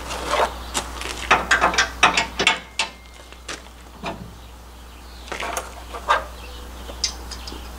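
Irregular clicks and clinks of hitch bolts and hardware being handled and fitted at a truck's receiver hitch, coming thick and fast for the first two to three seconds, then scattered single clicks.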